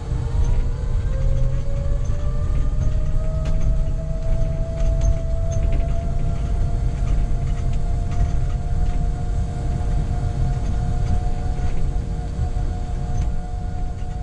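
Electric bus on the move, heard from inside the cabin: a steady low road rumble with an electric drive whine that rises in pitch over the first few seconds as the bus gathers speed, then holds level.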